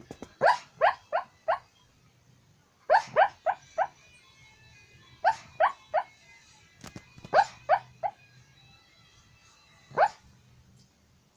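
A dog asleep, giving short, sharply rising yips in quick clusters of three to five, a cluster every two to three seconds, with a single yip near the end.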